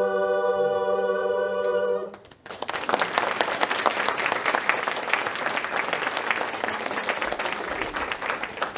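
A women's a cappella barbershop chorus holds its final chord for about two seconds, then cuts off together. After a brief gap the audience breaks into applause, which thins near the end.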